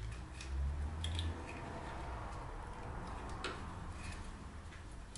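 Scattered light clicks and taps of hand tools working on a dirt bike's lower engine, with a brief low rumble about half a second in.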